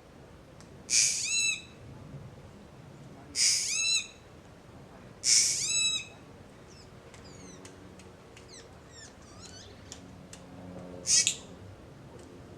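A bird giving four loud, harsh calls, each about half a second long and made of a rasping burst with quick stuttering notes, with faint short chirps between the third and fourth calls.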